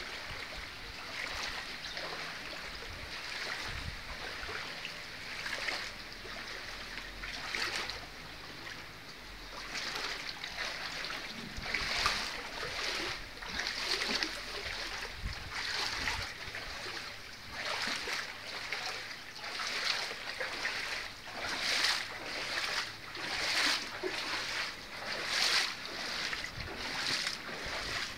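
Footsteps wading through shallow floodwater, splashing about once a second, most regular in the second half, over a steady wash of water noise.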